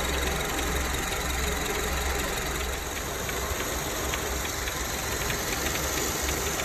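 Honda Civic sedan engine idling steadily with a light, repeated knocking from the hydraulic drive-belt tensioner, which the owner takes for the ball in the tensioner's damper knocking.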